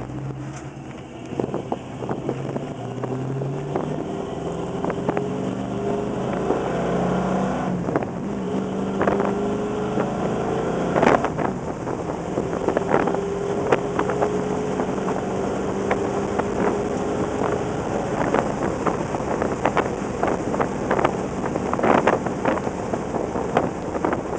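Interior sound of a 1969 Plymouth Road Runner's bored-out 440 V8 under way through its four-speed manual. The engine pitch climbs for several seconds, drops about eight seconds in, then climbs slowly again. From there on, frequent sharp knocks and rattles come from the car running over a rough unpaved road.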